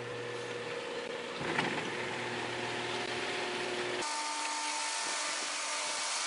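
Garage door openers running as two sectional garage doors roll up: a steady mechanical whir with a hum. There is a light click about one and a half seconds in, and the low hum drops out sharply about two thirds of the way through.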